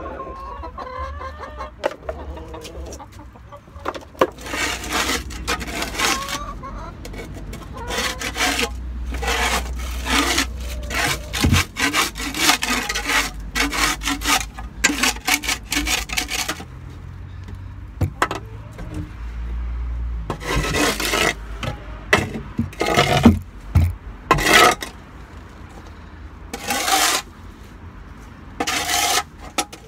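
Shovel and hand scraper scraping muck off a concrete floor in repeated strokes. Hens cluck briefly at the start.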